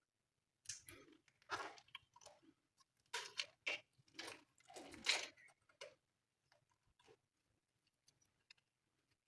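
Glossy slime being squeezed and kneaded by hand, a run of irregular sticky, crackly squishes that give way about six seconds in to a few faint scattered clicks.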